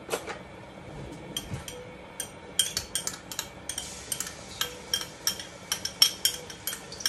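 A metal spoon clinking against a jar and pot rim, over and over, as ginger-garlic paste is spooned into a pressure cooker. The clinks come sharply, about three or four a second, starting about a third of the way in.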